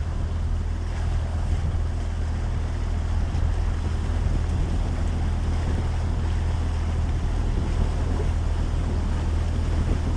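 Boat motor running steadily under way, a low, even hum, with wind and rushing water noise over it.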